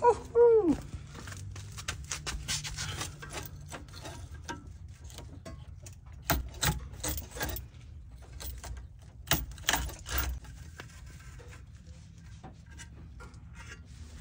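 Pocketknife blade scraping, sawing and clicking against wire tangled around a car's wheel hub and brake rotor, in irregular scrapes with louder bursts about six and nine seconds in. A cat meows once at the very start.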